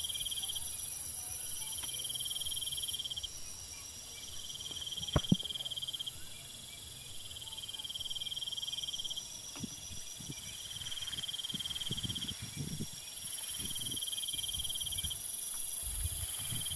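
Chorus of insects: a high trill repeating in spells of a second or two with short gaps, over a steady very high hiss. A single sharp click about five seconds in, and irregular rustling of grass in the second half.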